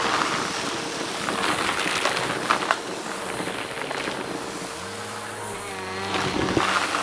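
Vacuum cleaner running with a steady whirr while picking up a crunchy debris mix, with scattered crackles and ticks as the pieces are sucked through the brushroll. A lower hum comes in about five seconds in.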